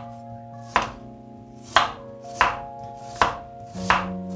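Kitchen knife slicing a peeled onion on a wooden cutting board: five sharp cuts, each ending in a knock of the blade on the board, a little under a second apart.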